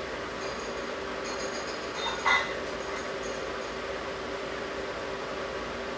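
A single short clink, like a small hard object set down or tapped on the workbench, about two seconds in, over a steady low hum.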